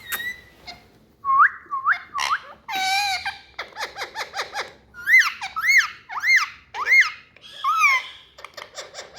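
Indian ringneck parakeet calling: a few short rising chirps and a harsh squawk, then a run of four arched whistles that rise and fall, with light clicks between the calls.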